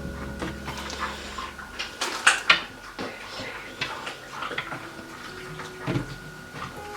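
Light knocks and clicks of a flat-pack kitchen cupboard being assembled, with shelves and fittings being set into the cabinet; the loudest knocks come about two seconds in.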